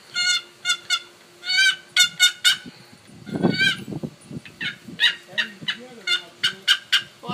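Wooden turkey box call, its paddle lid scraped across the box's edge to make a run of short, high, squawking yelps in quick groups.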